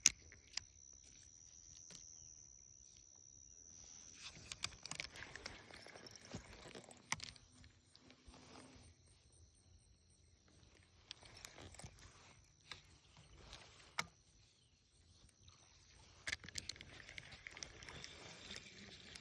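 Faint rustling and scattered sharp clicks, over a thin steady high-pitched whine that is clearest in the first few seconds.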